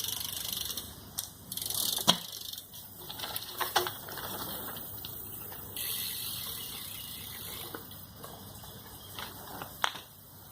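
BMX bike rolling, its rear hub ratcheting as it coasts, with a few sharp knocks from the bike hitting the ground, the loudest about two seconds in.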